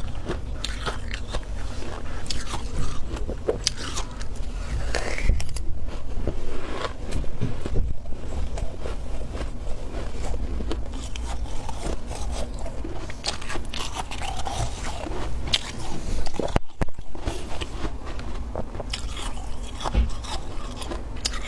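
Close-miked biting and chewing of thick, powdery freezer frost: a continuous run of crisp, irregular crunches, with a brief break about three-quarters of the way through.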